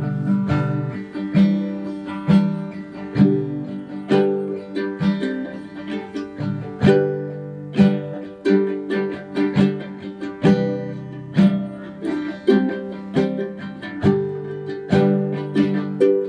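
Guitar playing an instrumental passage of picked notes and strummed chords, each note ringing out and fading.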